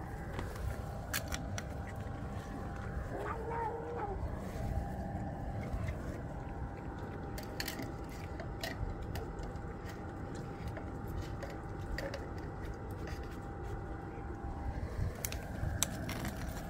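Stray cats eating, with scattered small crunching clicks, and a single short meow about three seconds in, over a steady low rumble and faint hum.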